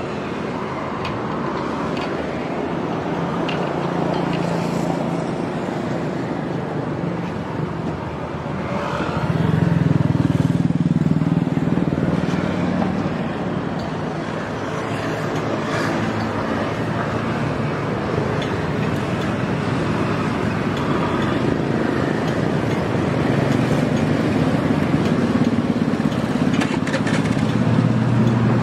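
Roadside traffic noise: the steady hum of passing motor vehicles, swelling louder about nine seconds in and again near the end as vehicles pass close.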